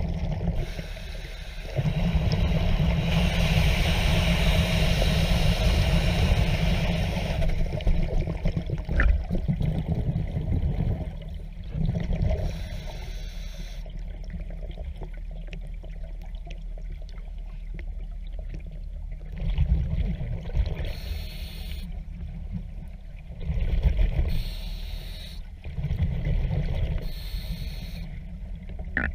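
Diver breathing underwater through a diving regulator: bubbly, gurgling exhalations alternating with short hissing inhales, repeating every few seconds.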